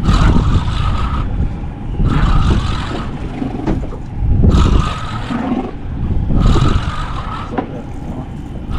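Boat engine running, with rushing water and wind noise that surges about every two seconds as the hull rides the swell.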